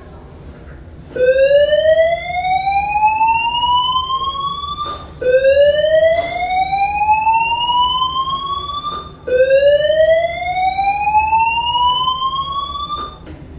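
A fire alarm voice-evacuation system sounding its slow-whoop tone between announcements: three loud, identical rising sweeps, each about four seconds long, that start low and climb steadily before jumping back down to start again.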